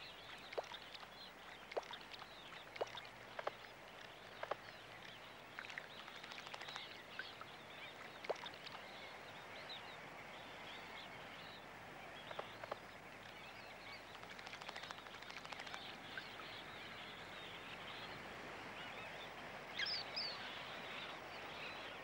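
Faint mudflat ambience: a steady hiss broken by scattered short splashes from a wrybill bathing in a shallow freshwater pool, with a few high bird chirps about twenty seconds in.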